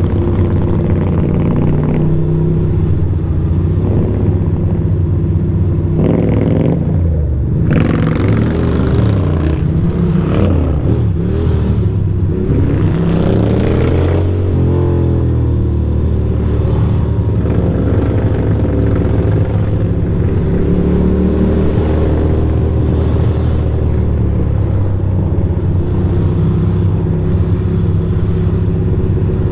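2006 Ducati Monster 620's air-cooled L-twin engine running at low speed while lane splitting between slow cars, with the pitch rising and falling through small throttle changes, mostly between about seven and fifteen seconds in. Steady wind and tyre noise runs underneath.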